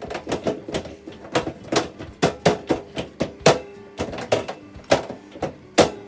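A run of irregular sharp knocks and clicks, about three or four a second, over faint background music.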